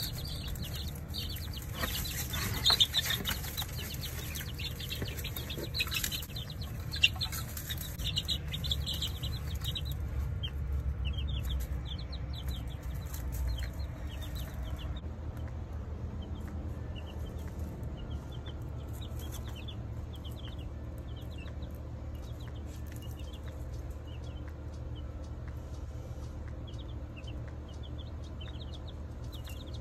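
Baby chicks peeping: many short, high, falling chirps repeating throughout. A few knocks and rustles of handling in the first ten seconds, over a steady low hum.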